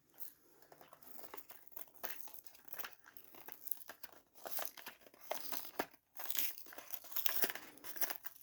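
Packaging crinkling and tearing as a LEGO collectible minifigure box is opened and its parts bags handled, in irregular short rustles that grow busier in the second half, with a brief pause about six seconds in.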